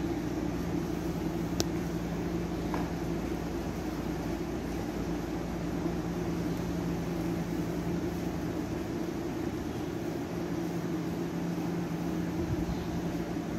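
A steady machine hum, low and even, over a constant hiss, with a single sharp click about a second and a half in.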